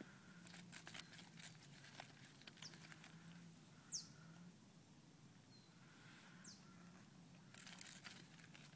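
Faint crackling of a small fire catching in resinous pine fatwood kindling, in scattered clusters of sharp snaps and clicks. A few brief high chirps sweep downward in pitch.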